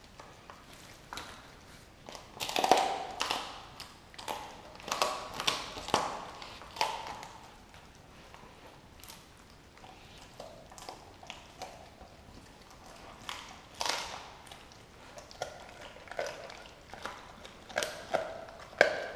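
A Doberman eating a whole raw turkey off a tile floor: irregular crunching, tearing and tapping as it chews on the carcass. The loudest bursts of crunching come about two to three seconds in and again around five to seven seconds in.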